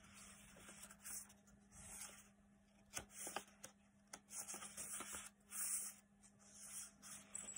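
Stiff paper pages of a handmade journal rustling and sliding as they are turned by hand, faint soft swishes with a few light taps.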